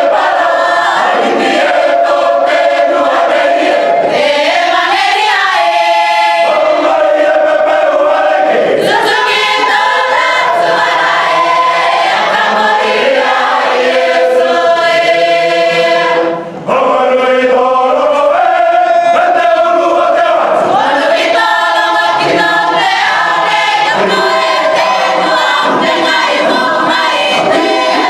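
Cook Islands imene tuki: a mixed choir singing an unaccompanied hymn in sustained close harmony, with a short breath-break about sixteen seconds in.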